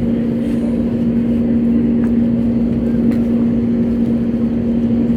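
Steady cabin drone inside an Airbus A320neo on the ground after landing: a constant low hum with a few steady tones above it over a rush of air, and a few faint clicks.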